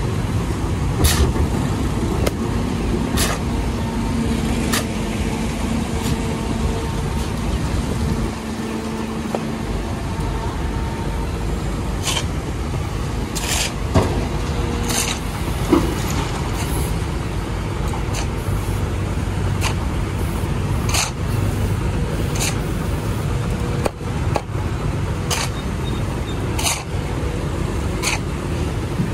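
Compact hydraulic excavator's diesel engine running steadily as it digs a trench and loads soil into a dump truck, with sharp clanks and scrapes every few seconds from the steel bucket and tools striking dirt and stone.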